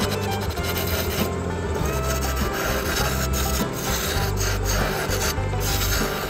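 Wood lathe turning: a gouge cutting and scraping shavings off a spinning wooden chisel handle, a continuous rasping scrape, with background music underneath.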